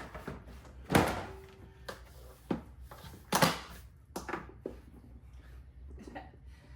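Collapsible dog crate being folded down by hand: a series of knocks and clacks as its door and panels fold, about six spread over several seconds. The loudest come about a second in and again near the middle.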